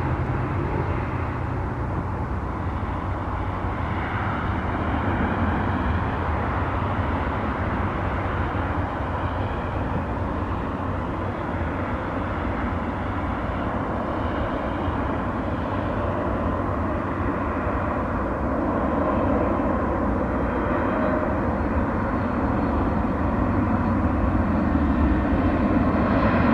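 Boeing 737 MAX 9 airliner with CFM LEAP-1B turbofan engines on final approach, gear down: a steady jet rumble with a faint high whine, growing louder toward the end as the plane comes nearer.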